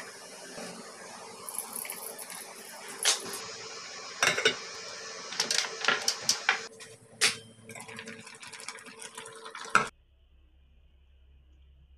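Scattered sharp clinks and knocks of kitchenware being handled (a rice-cooker pot, its lid and dishes) over a steady hiss. The sound cuts off about ten seconds in, leaving only a faint low hum.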